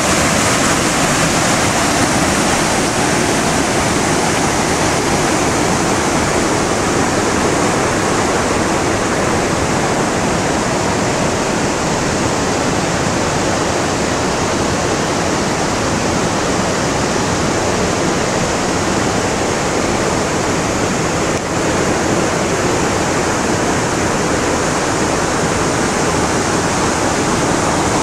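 River rapids rushing over rocks in a gorge: a loud, steady roar of white water.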